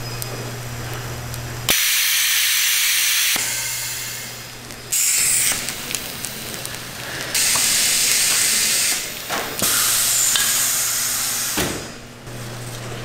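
Nurungji-making machinery hissing in loud bursts of steam or air about four times, each lasting a second or two and cutting in and out sharply, with a steady low machine hum between the bursts.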